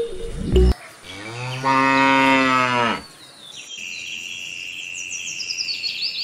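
A cow mooing once, a long call of about two seconds that starts about a second in, rises, holds and falls away. Just before it, music cuts off, and after it birds chirp over a steady high tone.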